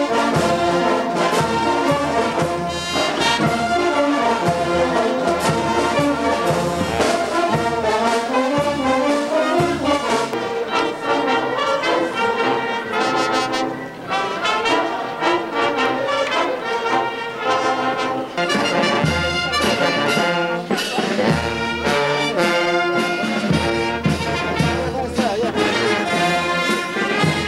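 Brass band playing a tune, loud and continuous, with a brief dip about halfway through.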